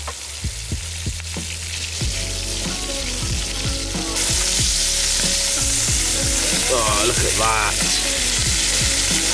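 Halved lobster frying in butter in a pan, a steady sizzle that grows louder about four seconds in.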